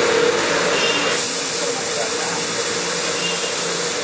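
Steady hissing with a steady hum underneath, the sound of a machine running; the hiss grows brighter about a second in.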